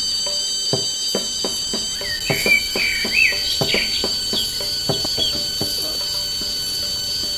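Steady high trilling of insects such as crickets, with a few bird chirps about two to three seconds in, over scattered light clicks and taps.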